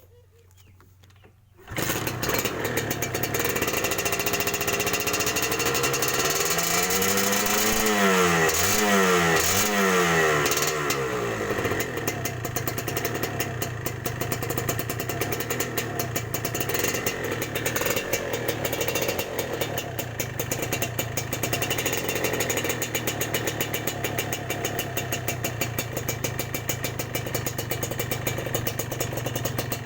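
Kawasaki Ninja R two-stroke motorcycle with a modified exhaust starting up about two seconds in, revved three times in rising and falling blips, then idling steadily with a crisp, crackly exhaust note.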